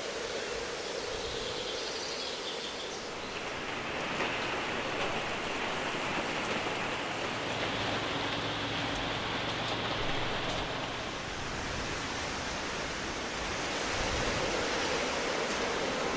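Steady rushing water sound with no pitch, like rain or a flowing stream, holding an even level throughout.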